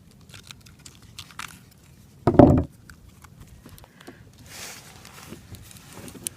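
Combat knife cutting and tearing through a block of ballistic gelatin: scattered small sticky clicks and crackles, with one brief louder sound about two and a half seconds in.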